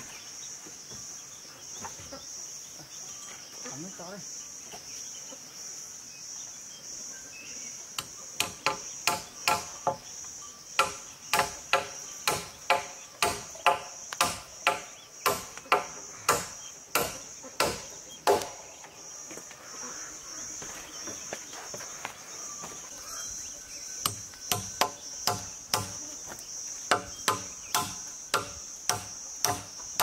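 Hammer driving nails into a wooden pole crossbar: sharp ringing blows about twice a second, in two runs, one starting about 8 seconds in and stopping near 18 seconds, the other starting again near 24 seconds. A steady high insect drone runs underneath.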